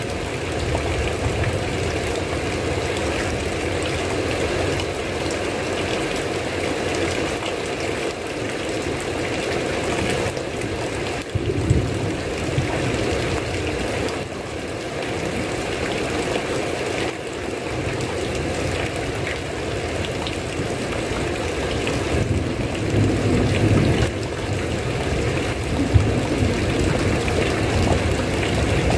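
Steady heavy rain falling, with a few brief low rumbles about a third of the way in and again near the end.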